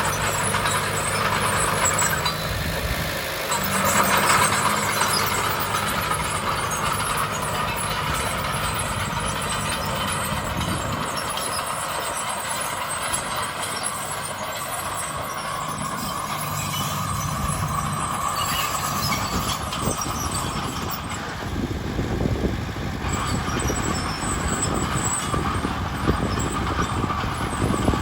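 Heavy diesel engines of earthmoving machinery running. A steady low engine hum thins out about ten seconds in, and a rougher rumble picks up in the last few seconds.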